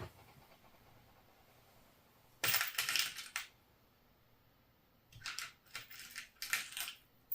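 Small screws and metal parts clinking and rattling. There is a short cluster of clicks about two and a half seconds in, then a few lighter separate clicks near the end.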